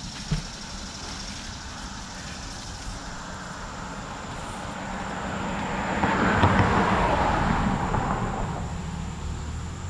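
A road vehicle passing by, its engine and tyre noise swelling to a peak about six or seven seconds in and then fading away. A steady high insect buzz runs underneath.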